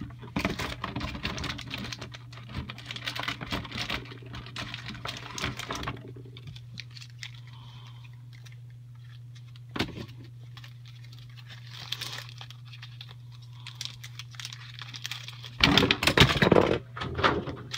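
Rapid clicking and rustling of things being handled close to the microphone, over a steady low hum. Partway through it goes quieter, with a single sharp knock, then a burst of loud handling noise comes near the end.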